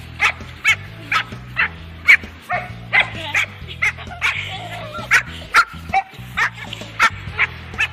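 Small dog barking in short, sharp, high-pitched yaps, about two a second in a steady run, while lunging at a person's feet. Background music plays underneath.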